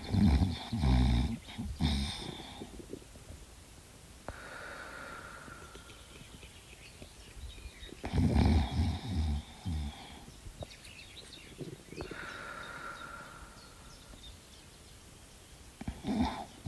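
A sleeping dog snoring in pig-like snores: loud, rough bouts of about two seconds, each made of several pulses, coming about every eight seconds. A softer, higher breath sound comes between them.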